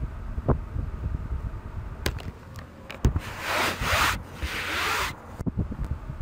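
Two rubbing strokes, each nearly a second long, about three seconds in, with a few sharp clicks before and after, over a low rumble.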